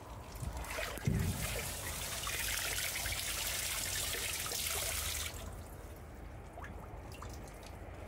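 Water spraying from a garden hose nozzle into a water-filled metal stock tank: a steady splashing hiss. There is a dull thump about a second in. The spray cuts off suddenly a little past five seconds in, leaving a few faint drips.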